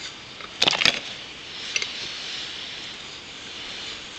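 Metal hand tools clinking against steel: a quick cluster of sharp clinks a little over half a second in, and a lighter one near two seconds, over a steady hiss. The tools are a homemade tap held in locking pliers.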